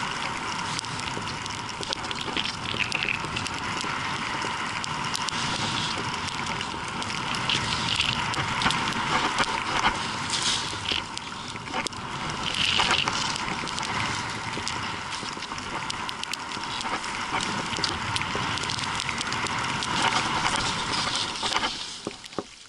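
Skis running through powder snow: a steady rushing hiss, with louder swishes every few seconds, that falls away sharply near the end.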